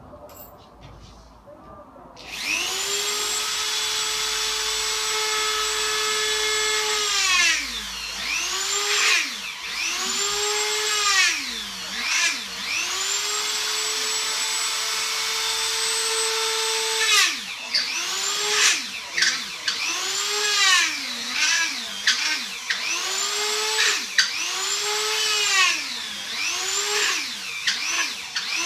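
Electric drill motor triggered in repeated bursts, starting about two seconds in: each run whines up to speed, holds, then winds down in a falling pitch. There are long runs of about five and four seconds early on and in the middle, and shorter bursts of about a second each toward the end.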